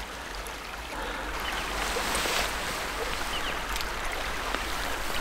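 Small mountain creek running: a steady rush of water, a little louder from about a second in, with a few faint clicks over it.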